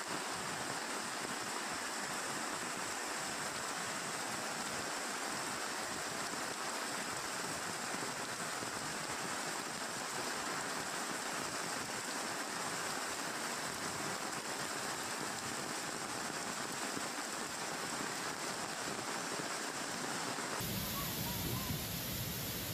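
Heavy monsoon rain pouring down steadily, with runoff water running across the ground. Near the end it cuts suddenly to the deeper, fuller rush of a muddy flood torrent pouring over a waterfall.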